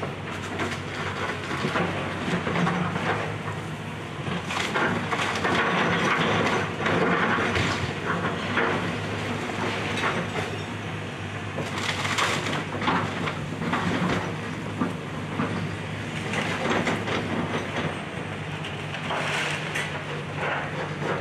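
Excavator tearing down a house: its engine runs steadily under irregular crashing and cracking as the structure is crushed and broken apart, loudest in bursts about a third of the way in, in the middle, and near the end.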